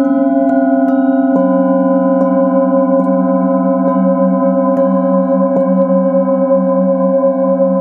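Singing bowls struck softly about once a second, several long ringing tones overlapping, the lowest one pulsing steadily.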